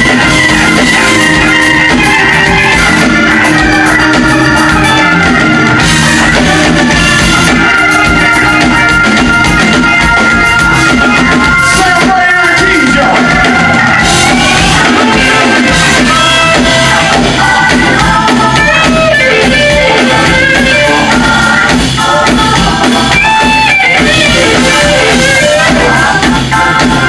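Live electric blues band playing loudly, with organ and electric guitar over drums.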